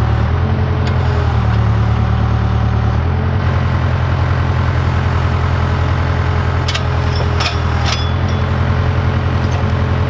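Case 580K backhoe's diesel engine running steadily while its hydraulic arm lifts and swings a log held in log tongs. Its note shifts and grows louder between about one and three seconds in, and a few sharp knocks sound about seven seconds in.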